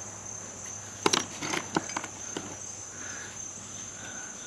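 A few sharp clicks and clinks of buttons and small trinkets knocking together as a hand rummages in a wooden drawer, most of them between one and two and a half seconds in. Behind them runs a steady high chirring of insects.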